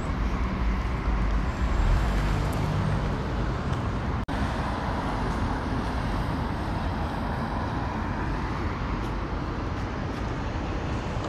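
Steady street traffic noise, with a heavier low rumble over the first few seconds. The sound drops out for an instant about four seconds in.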